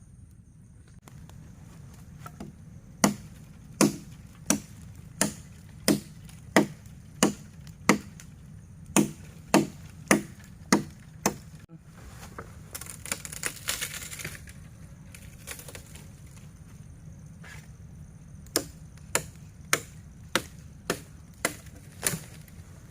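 Wood being chopped with a blade: three runs of sharp, evenly spaced strokes, about one and a half a second, with a brief rustle in the pause between the second and third runs.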